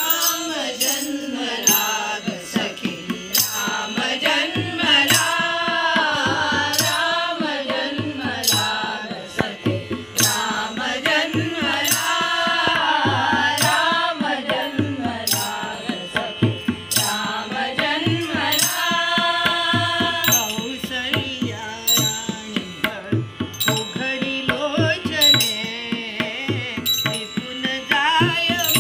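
Group of women singing a devotional song for Rama's birth, accompanied by tabla and small hand cymbals (manjira) struck in a steady beat.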